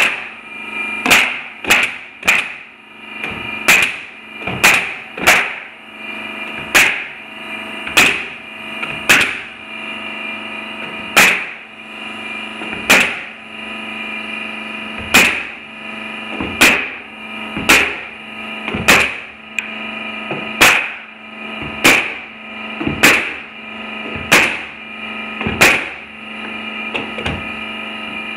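Pneumatic coil nailer firing nails through plywood flooring into 2x4 framing: about twenty sharp shots, irregularly spaced one to two seconds apart, over a steady hum.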